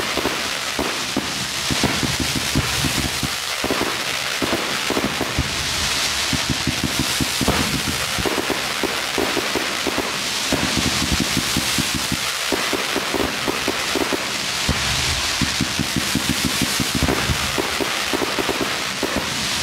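Fireworks going off in a dense, continuous crackle of many rapid pops a second, over a steady hiss.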